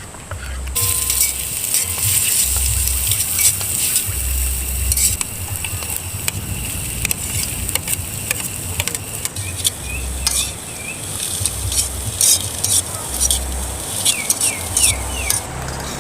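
Vegetables frying in a pan, sizzling, with a utensil stirring and clicking against the pan. The sizzle starts about a second in.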